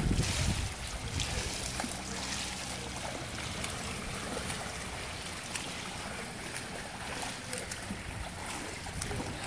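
Pool water splashing and lapping as a swimmer swims backstroke, with faint irregular splashes from the arm strokes. Wind rumbles on the microphone briefly at the start.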